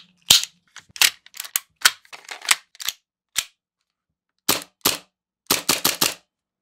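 Hi-Capa airsoft gas pistol being reassembled by hand: about a dozen sharp metal clicks and clacks as the slide, guide rod and recoil spring go back onto the frame and seat, with a quick run of clicks near the end.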